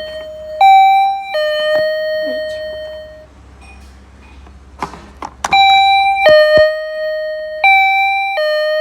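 Elevator's two-tone ding-dong chime sounding three times, each a higher note followed by a lower, ringing note. A few sharp clicks come just before the second chime, about five seconds in.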